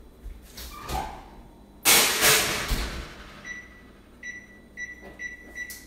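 Electric range's oven control keypad beeping as it is pressed to switch the oven back on: one short beep, then a quick run of beeps on the same high tone. A loud brief noise comes first, about two seconds in.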